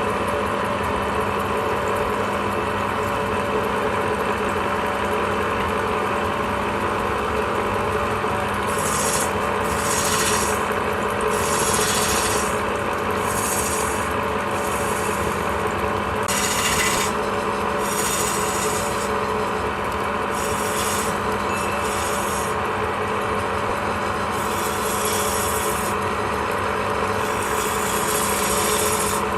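Wood lathe running with a steady motor hum; about a third of the way in, something starts scraping against the spinning wood in repeated strokes of about a second each, a rasping hiss over the hum.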